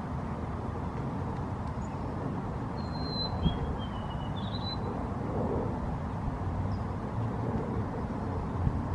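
Steady low outdoor rumble with a bird giving a few short, gliding chirps about three to four and a half seconds in, and a single faint click near the first chirp.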